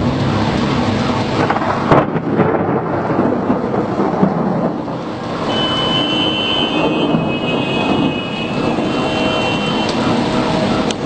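Thunder rumbling through a storm, with a sharp crack about two seconds in.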